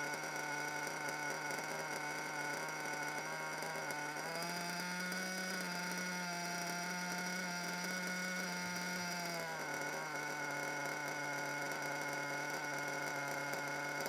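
Small RC nitro engine idling. About four seconds in the idle climbs, holds higher for about five seconds, then drops back: a wandering idle with no apparent cause, which the owner puts down to a bad front crankshaft bearing.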